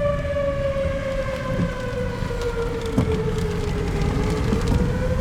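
Outdoor tornado warning siren wailing, its pitch sliding slowly down and then starting to climb again near the end, over a low rumble.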